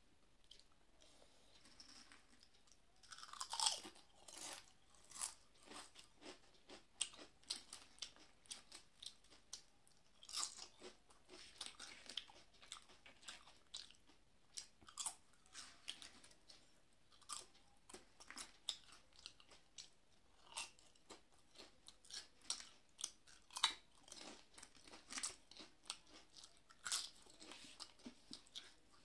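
Close-miked chewing of thin fried potato chips (alur chips) with mouthfuls of rice, a run of irregular crisp crunches. The crunching starts about three seconds in, with the sharpest crunches just after that and again near the end.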